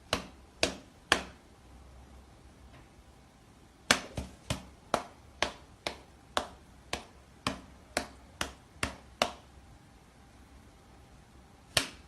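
A series of sharp taps or clicks: three at the start, then a run of quick taps at about three a second, and one last tap near the end.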